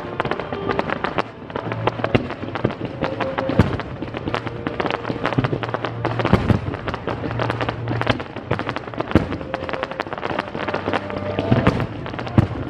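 Fireworks bursting in many rapid, irregular bangs, over music with held bass notes playing through loudspeakers.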